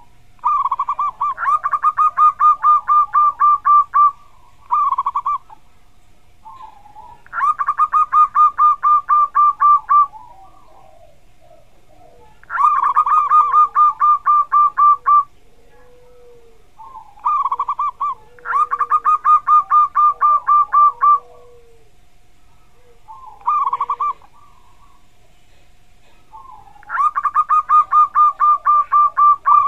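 Zebra dove (perkutut) singing: five long bouts of its rapid, staccato cooing song, each about three seconds, with a few short snatches in between.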